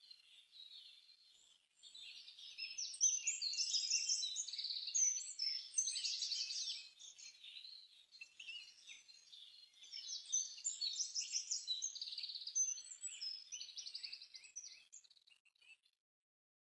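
Birds chirping and singing in quick overlapping high-pitched notes, busiest in two spells with a lull in between, fading out just before the end.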